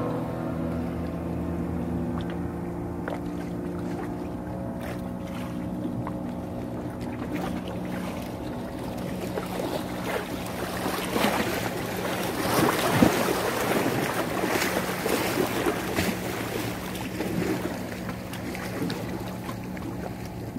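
An engine runs with a steady low hum. From about ten to sixteen seconds in, a louder crackling, splashing noise rises over it and then fades.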